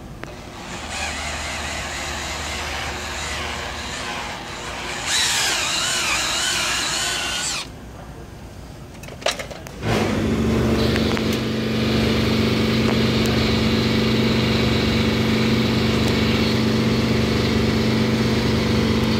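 Cordless drill spinning a rag-wrapped cleaning brush in a diesel injector-cup bore, its pitch wavering as the speed changes, louder for a couple of seconds before it stops. About ten seconds in, a steady machine hum starts and keeps going.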